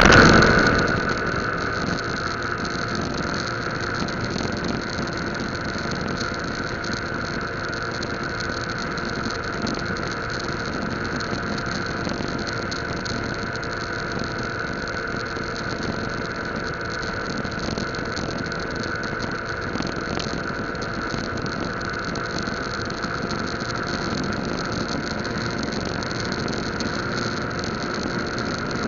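Yamaha Lagenda 115Z's single-cylinder four-stroke engine running at a steady highway cruise, mixed with wind and road noise. The sound is louder for about the first second, then settles into an even drone.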